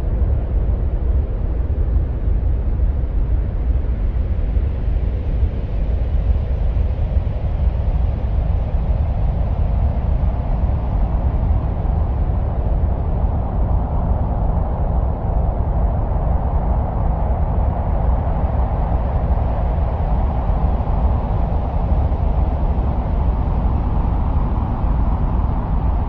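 A steady, wind-like rushing rumble of a Mars soundscape, deep and unbroken, with a hollow middle band that slowly swells through the second half.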